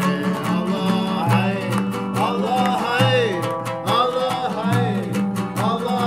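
Music with plucked guitar over a steady low beat, and a melody line that bends in pitch.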